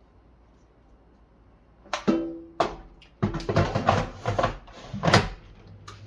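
Low room tone, then about two seconds in a short burst of music with plucked, guitar-like notes that runs for about three seconds.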